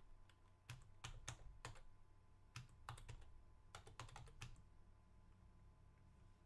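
Faint typing on a computer keyboard: a quick run of key clicks that stops about four and a half seconds in.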